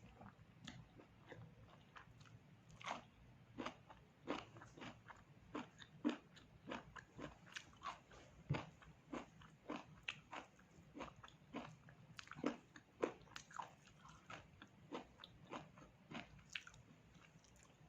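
Close-miked chewing of pork: a steady run of moist chewing clicks and crunches, roughly two a second.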